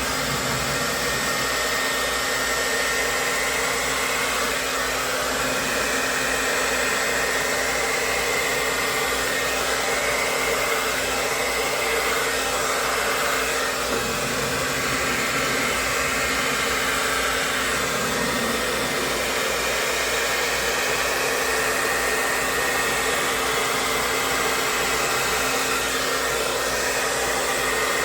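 Handheld blow dryer running steadily, its air stream rushing with a steady motor whine, blowing wet acrylic pour paint across a canvas.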